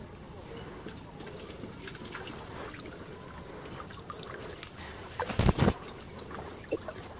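Floodwater sloshing and trickling around a person wading through it, with small splashes and leaf rustles. About five and a half seconds in, a short loud rustling brush as plant leaves rub against the camera.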